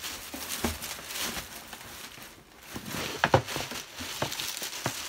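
A shopping bag rustling and crinkling as shoes are pulled out of it, with a few knocks, the loudest a little past the middle.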